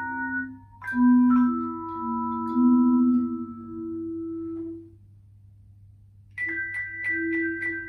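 Tone chimes playing a melody: each struck chime rings on and overlaps the next, with low held notes under higher ones. The music drops away for about a second and a half around five seconds in, then comes back with quick repeated strikes, about four a second.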